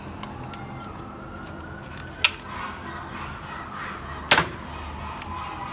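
Two sharp snaps about two seconds apart from a cheap spring-loaded toy gun firing soft bullets; the second is a quick double snap and the louder of the two.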